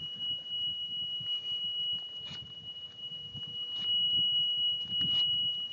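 Golf cart backup alarm sounding one steady, unbroken high-pitched tone, with low rumbling noise beneath it.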